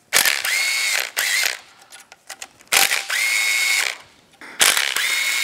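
Power driver run in three short bursts of about a second each, a steady motor whine with a rattle, backing out bolts in an engine's cam and timing-chain area.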